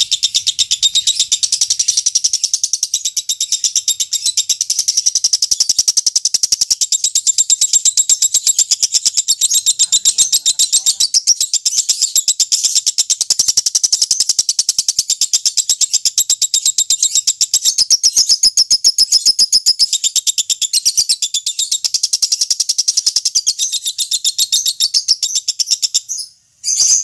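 Lovebird chattering in a long, unbroken run of rapid, high-pitched notes: the 'ngekek panjang' call. It breaks off about a second before the end.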